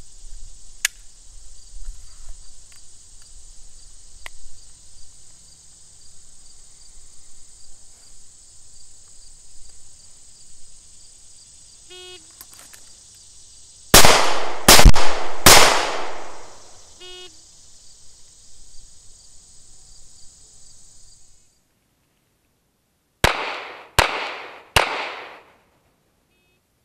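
Smith & Wesson SW99 pistol in .40 S&W fired three times in quick succession, under a second apart, each shot with a long echoing tail, over a steady chorus of insects. A short electronic beep sounds about two seconds before the shots and again just after them. Near the end, after a cut, three more pistol shots follow at the same pace.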